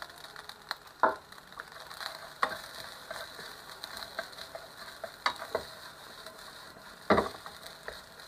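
Fried rice sizzling in a non-stick pan as a wooden spatula stirs and turns it, with a few sharp knocks of the spatula against the pan, the loudest about seven seconds in.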